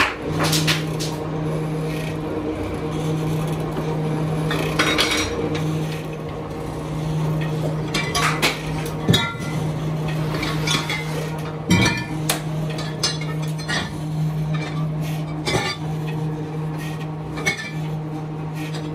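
A hose-making machine's electric motor hums steadily. Irregular sharp metallic clinks and knocks sound over the hum as metal tools and mandrels are handled.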